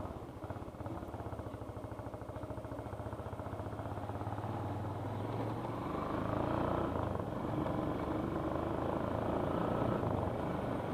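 Motorcycle engine running at low speed while riding over a rough road, a steady low note that gets somewhat louder about halfway through.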